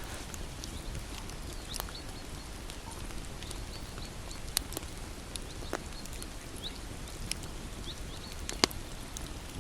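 Campfire crackling: burning wood pops and snaps at irregular moments over a low steady rumble of the fire, with two sharper pops, one about halfway through and a louder one near the end.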